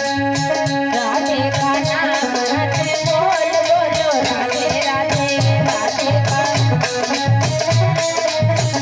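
Indian devotional folk music: a steady beat of low hand-drum strokes with a shaker-like rattle, under a sustained melody line.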